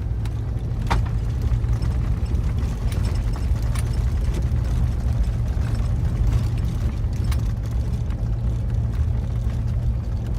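Land Rover Discovery 2 running and driving, a steady low engine and road rumble with a few short knocks or rattles.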